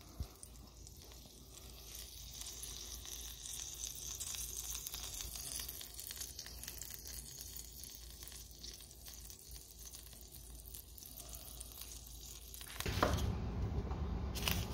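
Beer-can chicken sizzling in a pan of juices over a charcoal grill: a steady high hiss with fine crackling. Near the end the sound changes abruptly to a louder kitchen sound with a sharp knock or two from a knife chopping onion on a wooden cutting board.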